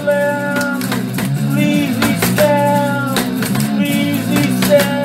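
A blues song: a man singing over guitar accompaniment.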